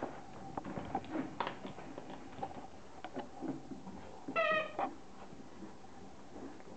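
Fox terrier puppies shifting about in their basket, with small scratches and knocks from paws and bedding, then one short high-pitched puppy yelp about four seconds in, followed at once by a brief second squeak.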